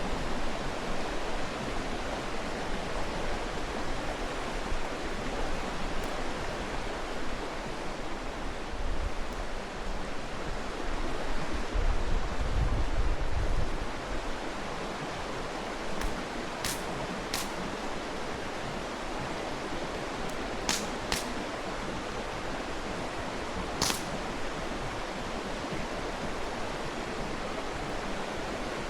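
Mountain stream rushing steadily, with a campfire giving a few sharp pops and crackles every few seconds. A brief low rumble comes about twelve seconds in.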